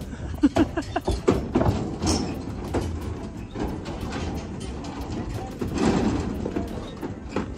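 Indistinct voices in the distance, with scattered knocks and clatters throughout.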